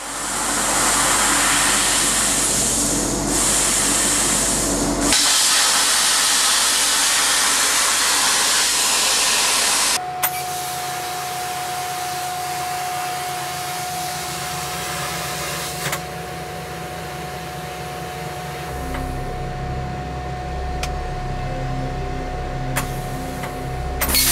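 Torchmate CNC plasma cutter's torch hissing loudly and steadily as it cuts. About ten seconds in it gives way to quieter, steady machine noise with a constant high whine, a few sharp clicks and a low hum joining near the end.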